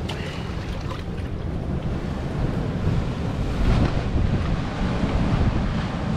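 Wind buffeting the microphone over the steady wash of sea surf: a constant low rumble with no separate events.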